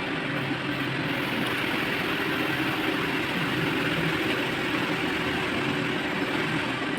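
Steady running of an engine or heavy machinery, even and unbroken throughout.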